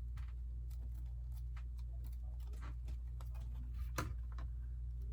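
Lego bricks being handled and pressed together: small, scattered plastic clicks and taps, with a sharper click about four seconds in, over a steady low hum.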